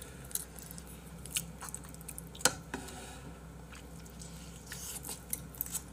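Chewing and wet mouth sounds of people eating agujjim, spicy braised monkfish, with scattered short sharp clicks, the loudest about two and a half seconds in.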